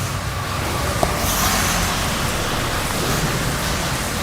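Steady background noise, like a road or a fan, with a faint high tone and a single sharp tick about a second in.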